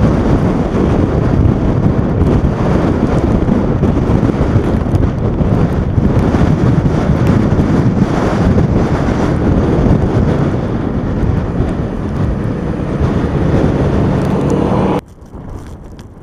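Heavy snow-clearing vehicle running under load, a loud steady engine din mixed with wind buffeting the microphone. The sound drops off abruptly near the end.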